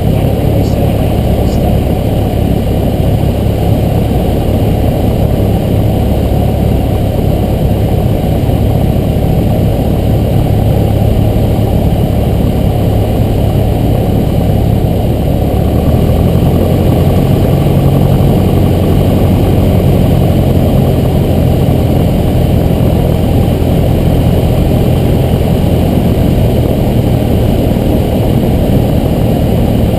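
Cessna 172's piston engine and propeller droning steadily, heard inside the cabin. About halfway through, the drone changes pitch and gets slightly louder, a change in engine power.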